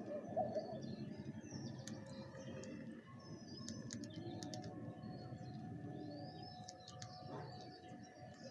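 Small birds chirping in many short, high calls throughout, over a low background noise, with a few sharp clicks.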